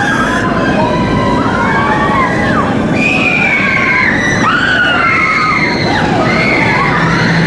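Several voices screaming and whooping at once in long cries that rise and fall, over a steady rushing rumble.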